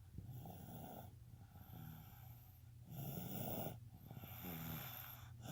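Snoring: rasping, noisy breaths drawn in and out about once a second, some with a low buzzing pitch.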